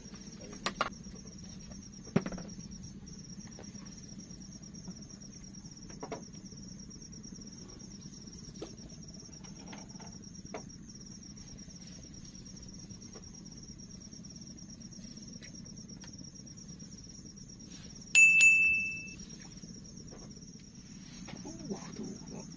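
Crickets and other insects chirping in a steady, high, continuous trill over a low hum, with scattered soft knocks. Late on, a loud, short, high-pitched beep lasts about a second.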